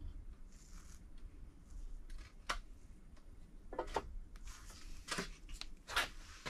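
A BMW N55 crankshaft being handled in the engine block's lubed main bearings by gloved hands. Several sharp light metallic clicks and knocks are heard, the loudest about six seconds in, among short rustling noises from the gloves.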